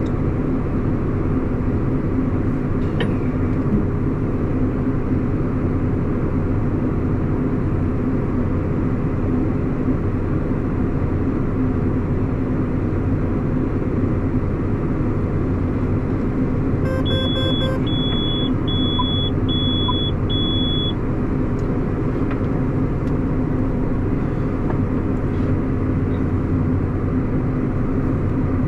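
Tractor engine running steadily at about 1200 rpm, driving the PTO to unload. About seventeen seconds in there is a row of five short, high electronic beeps.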